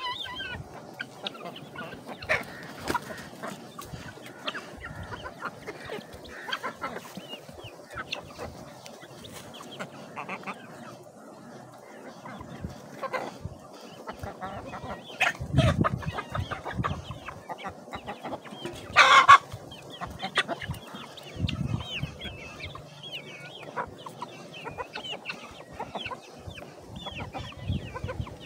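Chickens clucking and chirping close by, with one loud, short call about two-thirds of the way through.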